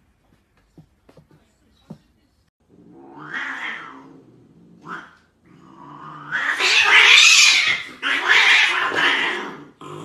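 A cat yowling in a standoff with another cat. There is a drawn-out yowl about three seconds in and a short one near five seconds, then a louder, harsher wailing in two long stretches from about six seconds to near the end.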